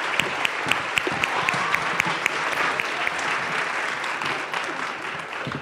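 Large audience giving a standing ovation: dense clapping with a few cheers, dying down near the end.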